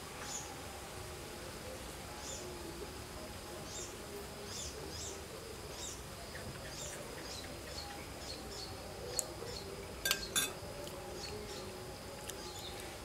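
Faint outdoor ambience: a steady high insect whine with birds chirping in short repeated calls. About ten seconds in, two quick sharp clicks.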